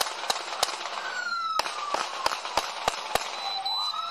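Volley of police officers' handgun fire: two shots, a pause of about a second, then six more in quick succession at about three a second. A police siren wails underneath.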